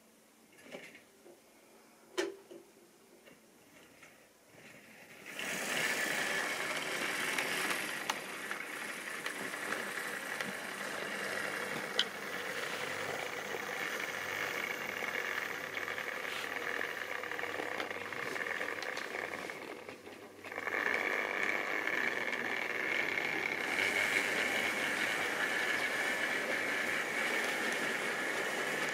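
Model railway train running on its track: a few faint clicks at first, then from about five seconds in the steady rattle and hum of the wheels and locomotive motors as the rolling stock rolls past. The noise dips briefly about twenty seconds in, then picks up again.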